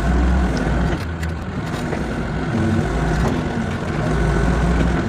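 Excavator engine running under varying load as it works, its low rumble dropping about a second in and building again near the end.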